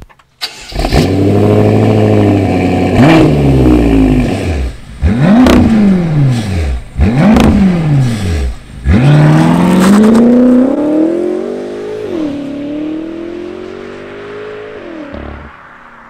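BMW M6's 4.4-litre twin-turbo V8 through an Akrapovic exhaust, starting up about half a second in and settling into a steady idle. It is blipped three times in quick rises and falls. Then it accelerates away under load, rising in pitch, dropping once at an upshift and rising again as it fades into the distance.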